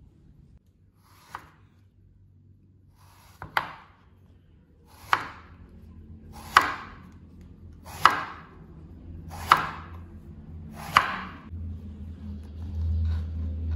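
Chef's knife slicing a long purple eggplant into rounds on a bamboo cutting board: seven crisp cuts, each ending in a knock of the blade on the board, about one every second and a half. A low rumble sets in near the end.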